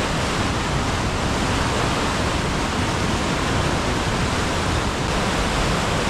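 Whitewater rapids of the Düden River cascading through a rocky gorge: a loud, steady rush of water.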